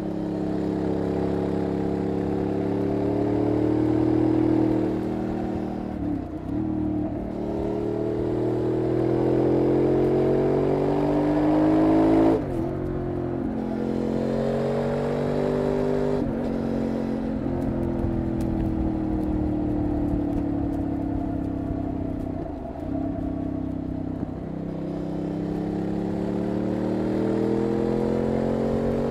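Benelli Leoncino Trail 800's parallel-twin engine and exhaust under way, the pitch climbing as the bike accelerates and dropping sharply several times at upshifts.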